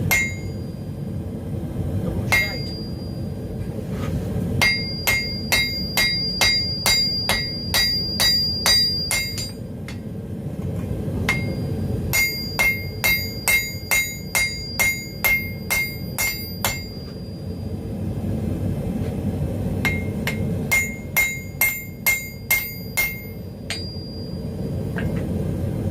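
Hand hammer striking hot steel on an anvil in three bursts of about a dozen, a dozen and eight blows, two to three a second, each blow ringing, with a few single blows between. A steady low rush runs underneath, from the gas forge burner.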